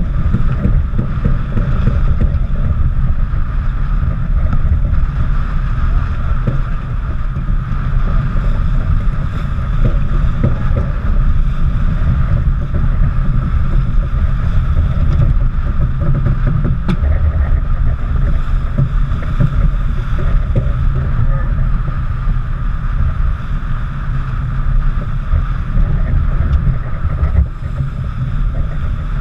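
Wind buffeting the microphone in a steady low rush, over water rushing and splashing along the hull of a sailing yacht heeled hard and driving through the waves.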